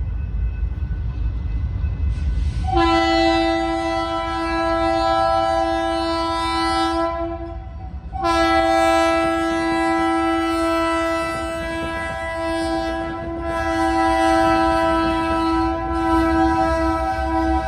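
Freight locomotive's multi-chime air horn sounding two long blasts, the first about five seconds long starting about three seconds in, the second starting after a brief break about eight seconds in and lasting longer, over the low rumble of the train.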